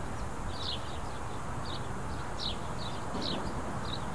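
A bird chirping repeatedly, short high calls about two a second, over a steady background hiss.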